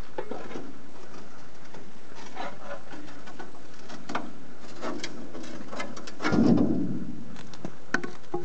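Irregular clicking and crackling from the smoking steel charcoal kiln as its lid chocks are worked out, with a louder low rush about six seconds in.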